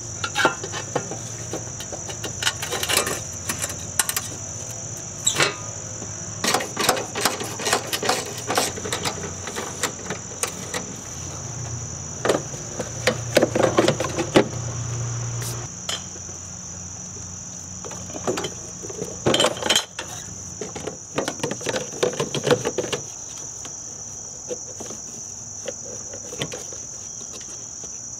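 Scattered clicks, knocks and clatter of metal and plastic parts as a car's battery bracket, battery tray and battery are set back in place under the hood. Behind them runs a steady, high-pitched insect trill, and a low hum stops about halfway through.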